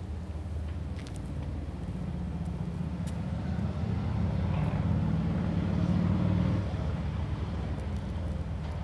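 Engine hum of a passing motor vehicle, growing louder to a peak about six seconds in, then fading.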